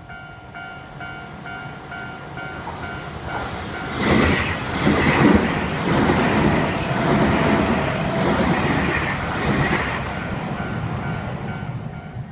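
Japanese railroad crossing warning bell ringing its two-tone clang about twice a second, then a train passing loudly for about six seconds from about four seconds in, its wheels clattering rhythmically over the rail joints and drowning the bell, which is heard again near the end.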